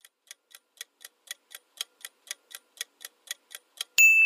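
Countdown-timer ticking sound effect, clock-like ticks about four a second, ending near the end in a loud bell ding that rings on.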